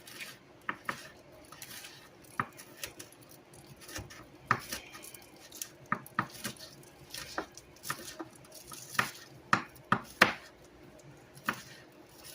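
Knife cutting green onions on a cutting board: irregular sharp taps and knocks of the blade on the board.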